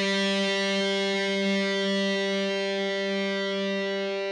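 Musical sting: one sustained electric guitar note ringing and slowly fading away.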